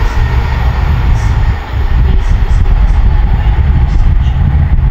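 Wind buffeting the microphone with a loud, gusty low rumble, over the fading running noise of a c2c Class 357 electric train as it pulls away into the distance.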